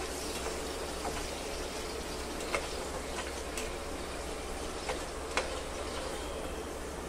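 Hot oil sizzling steadily around sweet potato fries deep-frying in a pan, with a few light metallic taps as a slotted spoon knocks against the wire strainer and pan rim while the fries are lifted out to drain.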